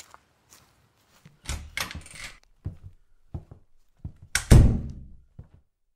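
A string of knocks and thuds in a small room, with a scraping knock about one and a half seconds in and the loudest, a heavy thump, about four and a half seconds in.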